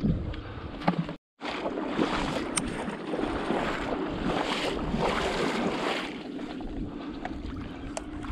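Legs wading through shallow marsh water, sloshing and splashing steadily, with a short break about a second in.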